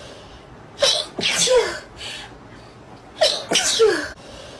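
A person sneezing twice, about two and a half seconds apart. Each sneeze comes in two quick bursts and ends in a voiced cry that drops in pitch.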